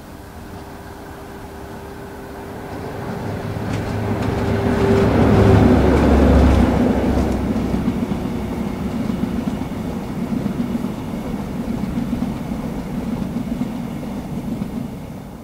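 A pair of Class 73/9 locomotives hauling a sleeper train under diesel power pass close by, their engine note growing to a peak about six seconds in. The coaches then roll past with a steady rumble and wheel clatter over the rail joints.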